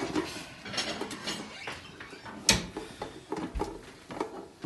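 Two frying pans clinking and knocking together as one is held upside-down over the other and their handles are gripped, with a sharper knock about two and a half seconds in.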